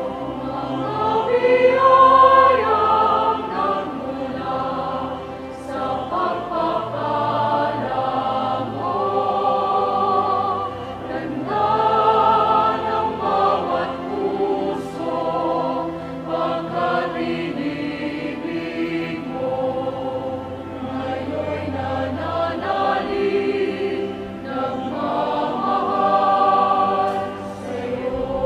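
Choral music: a choir singing slow, held chords.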